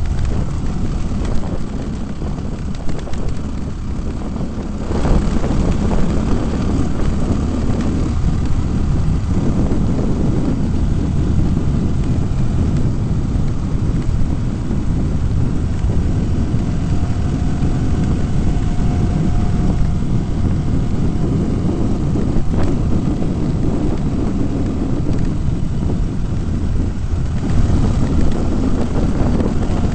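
Off-road vehicle driving, a loud steady low rumble of engine and drivetrain that grows a little louder about five seconds in.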